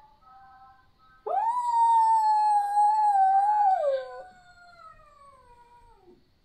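Dog howling: one long, loud, steady howl starting about a second in, dipping in pitch after about three seconds and trailing off in a fainter, falling whine.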